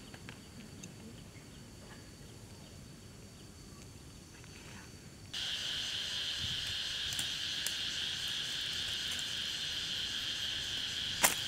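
Steady insect chorus. At first it is a faint high whine; about five seconds in a much louder, shrill, unbroken drone starts abruptly and runs until it cuts off just after the end. A single sharp snap sounds near the end as a slingshot is let go.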